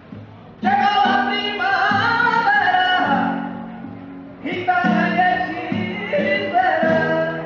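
Flamenco song: a singer over acoustic guitar. Soft guitar at first, then the voice comes in loud about a second in with a long held phrase, drops briefly past the middle, and starts a second phrase.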